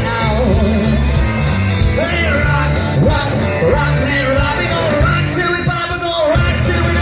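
Live rock and roll band: a woman singing over electric guitars, bass and drums.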